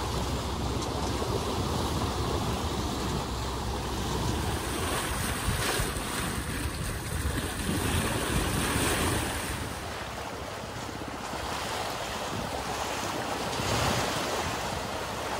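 Sailboat hull moving through the water, its bow wave rushing and splashing along the side, with wind on the microphone.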